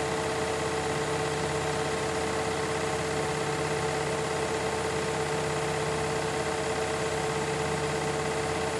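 Washing machines on a spin cycle: a steady motor whine over a constant hum from the spinning drums, unchanging throughout.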